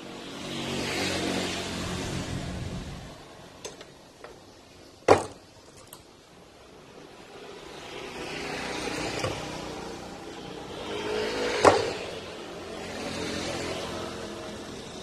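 Motor vehicles passing by, their engine sound swelling and fading three times. Two sharp clicks stand out, about five seconds in and again about six and a half seconds later.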